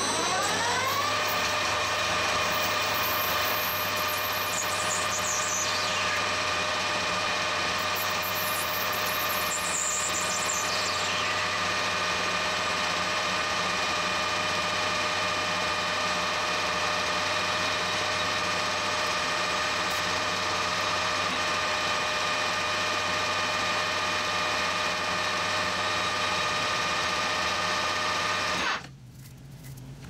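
Metal lathe spinning up, its pitch rising over the first second, then running steadily with a whine of several steady tones while the tool cuts a white Delrin (acetal) rod into long stringy chips. A faint high sound glides downward twice in the first ten seconds, and the lathe sound drops away about a second before the end.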